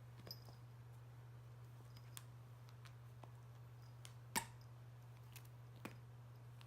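Near silence: a faint steady low hum with a handful of scattered light clicks, the sharpest about four and a half seconds in.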